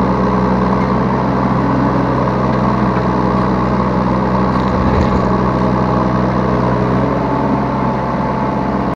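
Yanmar B3 Sigma 3-ton mini excavator's diesel engine running steadily, with a brief knock about five seconds in.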